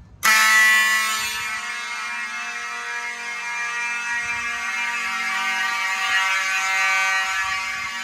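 Several fire alarm horns, Simplex mechanical horns among them, start abruptly a fraction of a second in and sound together as one loud, unbroken blare of several pitches. They are set to continuous signaling rather than a pulsed pattern.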